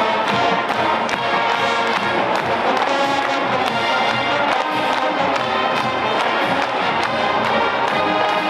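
Marching band playing: massed brass (trumpets and trombones) over a steady drumline beat.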